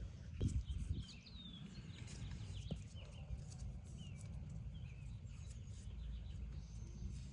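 Small birds chirping in short rising and falling calls over a steady low rumble, with a couple of dull thumps about half a second in.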